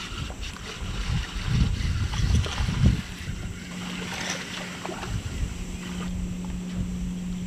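Wind buffeting the microphone in gusts, loudest between about one and three seconds in, over a steady low hum from the bow-mounted electric trolling motor of a bass boat.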